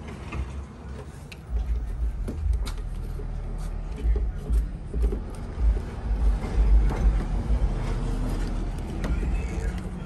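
Light clicks and scrapes as an exterior truck door handle's plastic and metal parts are fitted into the door, over an irregular low rumble.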